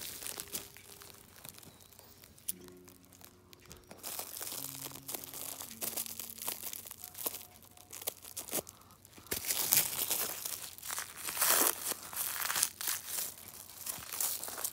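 Clear plastic wrapping crinkling and tearing as it is cut and pulled off a plush toy, in quiet crackles at first and louder, denser crinkling in the second half.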